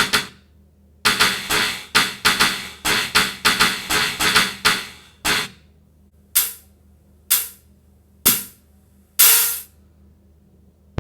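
A series of sharp knocks or strikes: a quick run of them for the first few seconds, then single strikes about once a second, each dying away briefly.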